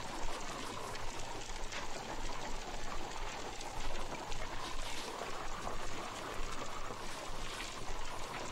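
Water splashing and trickling as bare feet are washed by hand in a basin, with scattered small drips over a steady hiss and low hum.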